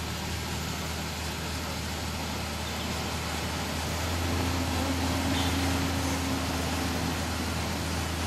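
SUV engine running under load as it tows a boat trailer up a launch ramp, a steady low hum that grows louder about halfway through.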